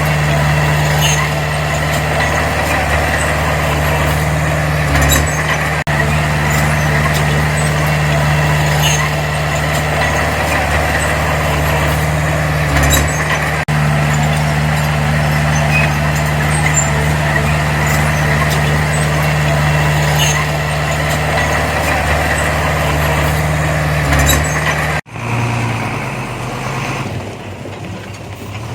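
Heavy diesel engine of earthmoving machinery running steadily under load, with occasional sharp metallic clicks. About 25 seconds in it cuts off suddenly and a quieter engine takes over.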